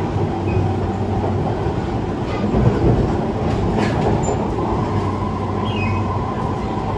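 Running noise inside a Siemens C651 metro car in motion: a steady rumble of wheels on rail and the car body, with a couple of short clicks about two and a half and four seconds in.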